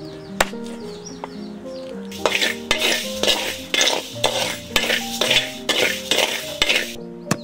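Raw rice grains dry-roasting in a metal wok, stirred with a metal spatula: repeated scraping strokes about twice a second, starting about two seconds in. Before that, a single knife chop on a wooden chopping board. Background music plays throughout.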